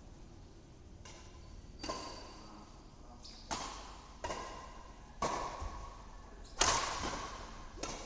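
Badminton rackets hitting a shuttlecock back and forth in a rally: about six sharp hits, roughly one a second, echoing in a large hall. The loudest hit comes about two-thirds of the way through.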